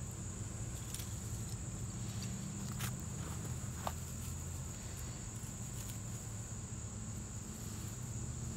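A steady high-pitched insect drone over a low hum, with a few faint clicks and rustles of dry wood shavings and scrapings handled on a stump.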